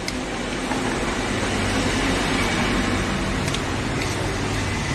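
Steady rushing noise of road traffic with a low hum, swelling over the first couple of seconds and then holding.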